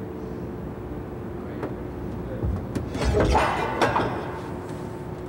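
A few knocks and a scraping shuffle, loudest about three seconds in, as a 120mm tank round is handled in a wooden turret mock-up, over a steady hum.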